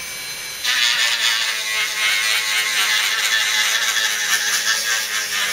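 A small handheld rotary tool wet-grinding a glass paperweight with a 600-grit wet-and-dry abrasive pad. After a faint motor whine, a loud, rough grinding hiss starts suddenly about two-thirds of a second in, as the spinning pad meets the wet glass, and carries on steadily. It is the stage of grinding out the last of a chip before polishing.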